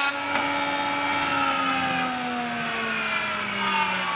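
Woodworking jointer's motor and cutterhead whining with no wood on the knives, the pitch slowly falling as it spins down; a single light click about half a second in.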